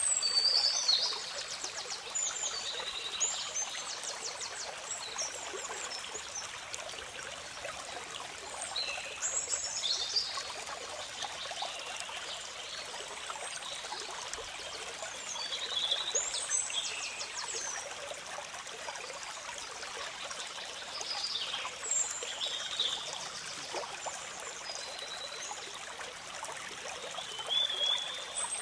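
A shallow stream trickling and splashing over rocks, a steady rush of water, with small birds chirping and trilling now and then above it.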